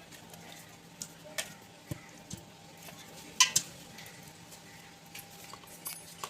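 A metal spoon clinking and scraping against a cooking pot a handful of times, with the loudest clinks about three and a half seconds in.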